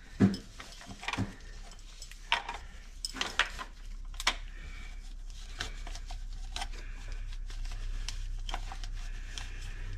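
Sink drain trap parts being handled and cleaned: scattered sharp clicks and knocks of the pipe pieces and slip nuts, a few louder in the first half, over a faint steady hum.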